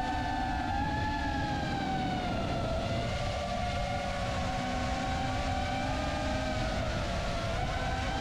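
Small FPV quadcopter's brushless motors and propellers whining in flight: several close tones that waver gently up and down with the throttle, over a low wind rumble.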